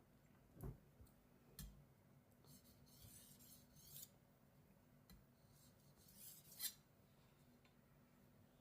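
Kitchen knife blade stroked across an Atoma 1200 diamond sharpening plate: two faint scraping passes, with two soft knocks just before them.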